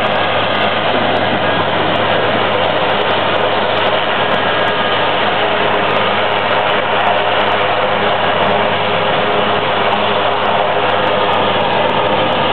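Helicopter running on the ground, a loud, steady engine noise that does not change.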